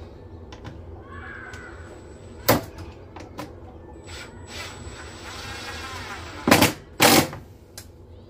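Hard plastic parts of a children's water-play table knocking during assembly: one sharp knock about two and a half seconds in, then two louder knocks in quick succession near the end.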